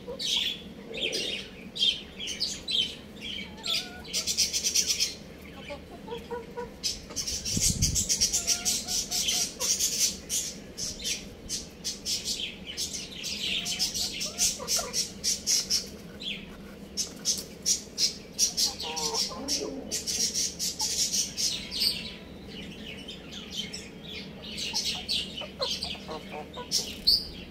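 Many birds chirping rapidly and without pause, with a few lower squawks among the chirps and a dull thud about eight seconds in.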